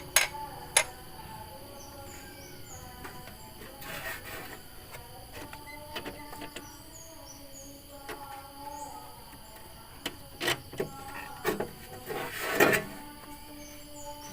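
Hand tools clicking and knocking on metal in the engine bay as the fan belt and pulleys are worked on with the engine off. The knocks come singly and scattered, a cluster of them about ten to thirteen seconds in, the loudest near the end. Birds chirp in the background.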